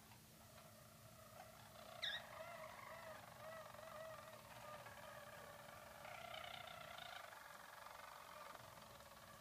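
Harzer roller canaries singing a continuous, soft, low rolling song of wavering trills. There is a brief sharp rising note about two seconds in, and the song grows busier and higher for a moment about six seconds in.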